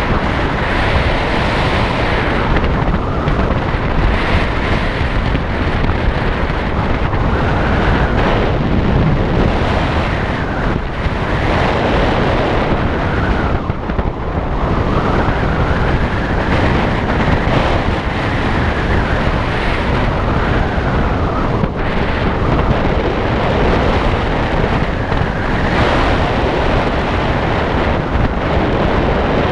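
Loud, steady wind noise rushing and buffeting over the microphone, the airflow of a paraglider in flight.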